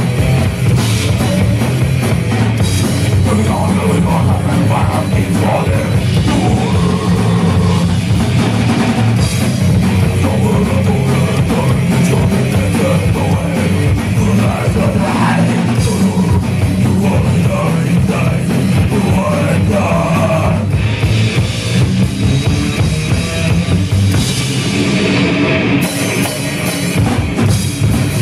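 A metal band playing live: distorted electric guitars over a drum kit, loud and dense without a break, heard from among the crowd in a small club.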